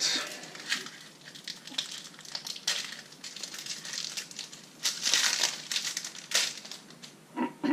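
Foil wrapper of a Panini trading-card booster packet being torn open and crinkled by hand, a series of crackling rustles, loudest about five seconds in.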